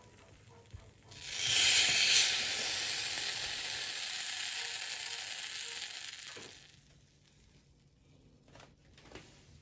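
Egg-and-toast sandwich sizzling in a hot non-stick pan: the sizzle starts suddenly about a second in, as the sandwich is turned over onto the pan, and fades away over about five seconds. A few faint clicks follow near the end.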